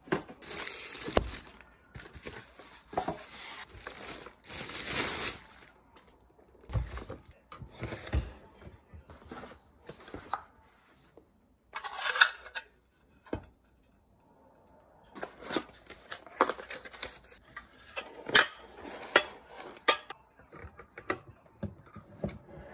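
Unpacking a sandwich and waffle maker: plastic wrapping rustling against foam packing, then the removable metal waffle and grill plates clicking and clattering as they are handled and set down, with a short quiet pause midway.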